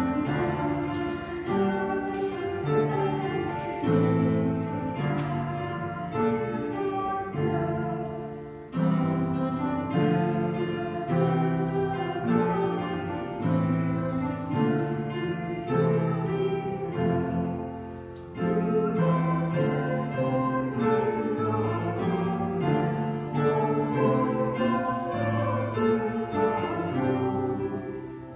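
A congregation singing a hymn with instrumental accompaniment, in long held phrases with short breaks about nine and eighteen seconds in.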